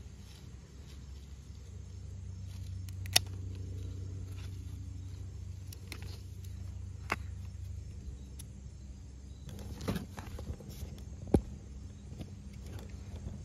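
Scissors snipping strawberry runners: several sharp single snips a few seconds apart, over a steady low rumble that swells for a few seconds and fades.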